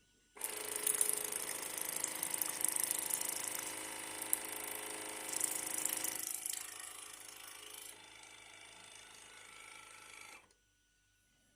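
Waterpik Ultra water flosser's pump switched on and running with a rattling, buzzing hum and a high hiss, then switched off. It starts suddenly, gets quieter about eight seconds in, and cuts off about ten seconds in.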